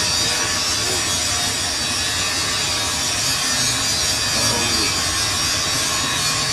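Steady machine-shop noise from running machinery: a continuous hiss with no clear strokes or rhythm.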